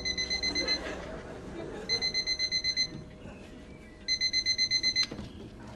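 Electronic alarm clock beeping: rapid high beeps come in bursts of about a second, each burst about nine beeps, repeating about every two seconds.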